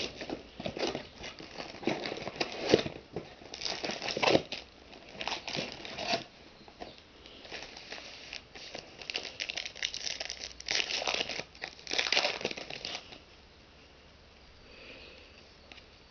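Foil 2008 Donruss Classics card packs crinkling and rustling in repeated bursts as they are pulled from the cardboard box, stacked and opened. The crinkling dies down over the last few seconds to faint handling of the cards.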